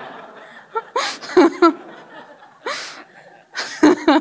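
A woman laughing in short, close bursts, with breaths between.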